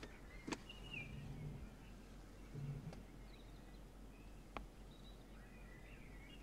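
Faint outdoor ambience with birds chirping now and then, over a low steady hum, broken by a few sharp clicks.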